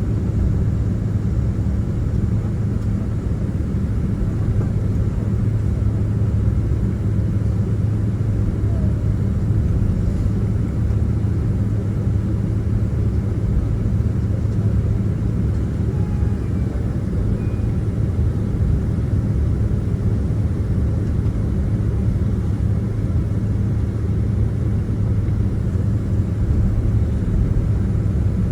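Boeing 767-300ER cabin noise on the ground after landing: a steady low rumble of the jet engines at idle, heard from inside the cabin.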